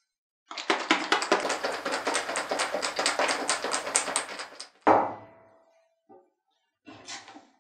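A small glass jar with a screw lid is shaken hard, its contents rattling fast and evenly against the glass. About five seconds in the jar is set down with a loud knock that rings briefly. Near the end comes a short scrape of a hand gripping a jar's metal lid.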